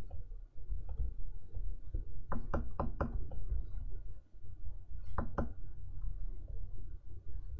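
Stylus nib tapping and scratching on the screen of an XP-Pen Artist 15.6 Pro pen display during sketching: a quick run of about five sharp taps a little over two seconds in, then two more about five seconds in, over a low steady rumble.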